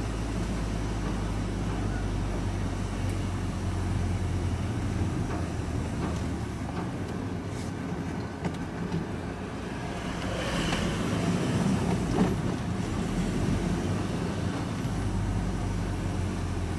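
Vehicle engine and road noise heard from inside the cab while driving slowly: a steady low drone that eases off around the middle and picks up again near the end.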